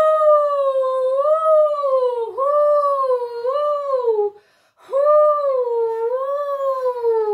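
A woman's voice imitating the howling wind of a snowstorm, a wavering "hoooo woooo" in two long breaths, each sliding down in pitch at its end.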